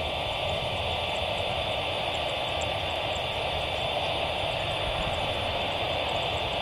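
Wings Air ATR 72-600's twin Pratt & Whitney PW127M turboprop engines running at a steady drone as the airliner rolls down the runway on its takeoff run, heard from a distance.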